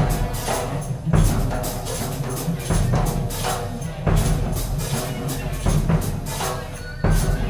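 Free experimental ensemble music: frequent knocks and strikes over a low, steady bass layer and some held tones, with louder accents about a second in, near the middle and near the end.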